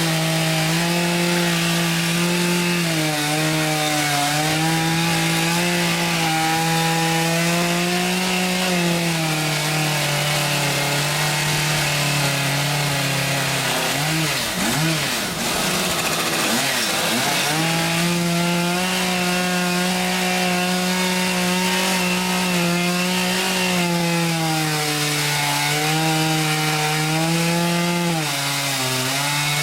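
Chainsaw mounted in an Alaskan sawmill, ripping lengthwise along a log at high speed under load, its pitch sagging and recovering as the cut goes. About halfway through, the engine speed swings rapidly up and down for a few seconds before settling back into the steady cut.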